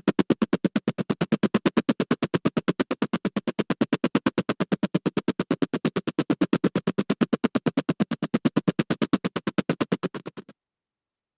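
A vehicle sound effect: a rapid, even pulsing of about seven or eight beats a second that weakens slightly and then cuts off abruptly near the end.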